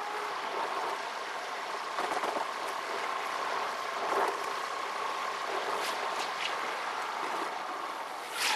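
Steady road and engine noise heard inside a moving car, with a hum running under it. A few faint ticks come about two-thirds of the way through, and a short, louder knock comes near the end.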